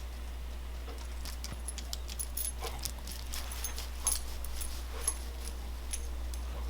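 A vizsla moving about close by, its collar tags jingling in short, irregular clinks. A steady low hum runs underneath.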